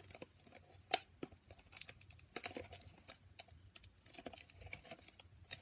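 Plastic blind-bag wrapper crinkling and clicking faintly as fingers pick and pull at it, struggling to tear it open, with one sharper snap about a second in.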